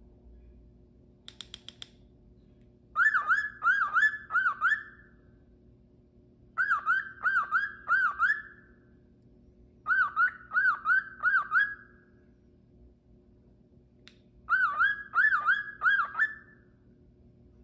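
Cockatiel whistling: four phrases of four to five quick swooping notes, each dipping then rising, with short pauses between phrases. A short run of quick clicks comes just before the first phrase.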